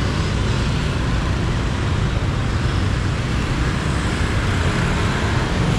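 Steady city street traffic, with motor vehicles running close by; a low engine hum grows stronger near the end.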